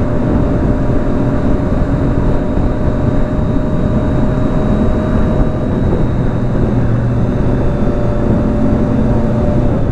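Triumph Daytona 675's three-cylinder engine running at a steady speed under way, over a steady rushing noise.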